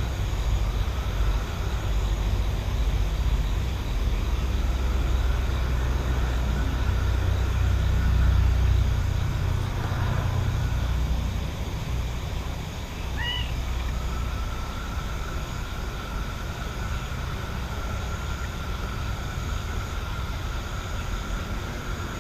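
Outdoor night countryside ambience: a low, distant rumble swells to its loudest a little before the middle, then fades. A faint steady high hum runs underneath, and a single short chirp sounds a little past the middle.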